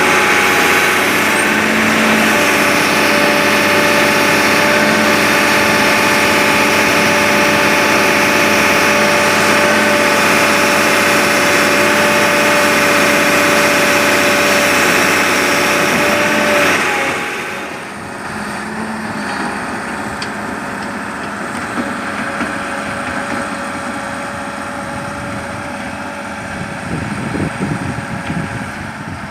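Sumitomo S280 excavator's diesel engine running steadily with a held whine, then dropping to a quieter, lower level a little past halfway through.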